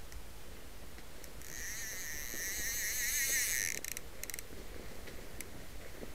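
Fly reel's click-and-pawl ratchet buzzing as line runs through it, the pitch wavering with the spool's speed. The buzz stops abruptly about two-thirds of the way in and is followed by a few single clicks.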